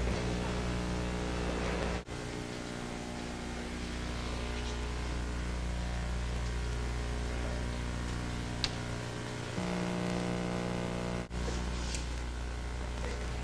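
Steady electrical hum with hiss: the room tone of an old television recording, with no other activity. It drops out briefly twice, about two seconds in and near the end, and there is a single faint click a little past the middle.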